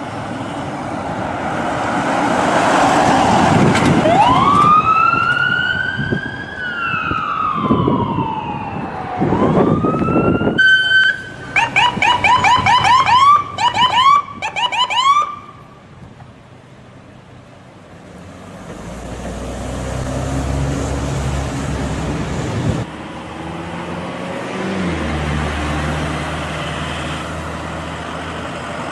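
New York ambulance siren amid traffic: a long wail that rises, slowly falls and rises again, then a short steady tone and a fast yelp for about four seconds before it cuts off. Afterwards a heavy engine idles in the street.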